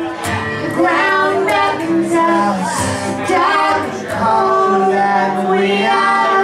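A song with a woman's voice singing long, held notes over music.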